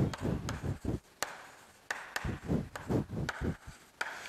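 Chalk writing on a chalkboard: a run of short, sharp taps and scrapes as the chalk forms each letter.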